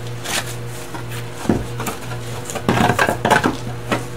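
A heavy flagstone slab being moved and set down against stone, giving scattered scrapes and knocks, with a burst of clattering about three seconds in.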